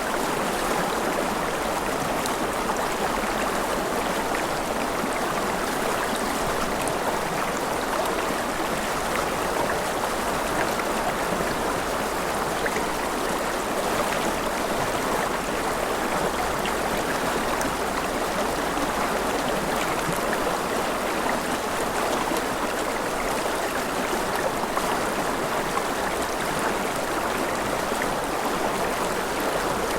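Mountain river rushing over rapids: a steady, even flow of water with no breaks.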